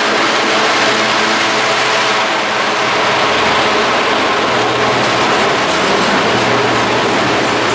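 A freight train passing at speed: a Class 66 diesel locomotive's two-stroke engine drones by at the start, then its wagons roll past with continuous wheel and rail noise.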